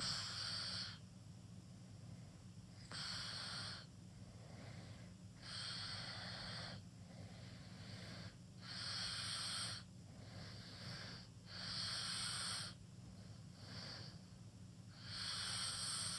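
A teenager snoring open-mouthed in sleep: a breathy, wheezy snore about a second long, repeating every two and a half to three seconds.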